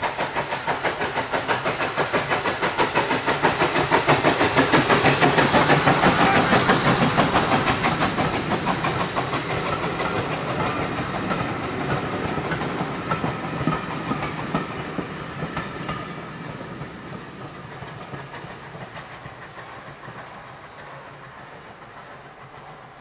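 Steam locomotive hauling a train past at speed: a rapid, even beat of exhaust and wheels on the rails. It grows loudest about six seconds in, then fades steadily as the train draws away.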